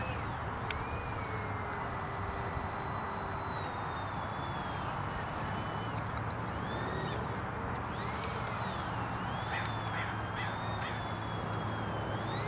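Electric ducted fan of an RC Habu model jet whining as it taxis on the ground. The whine holds one pitch for several seconds, then swoops up and down several times in the second half as the throttle is worked, over steady wind noise.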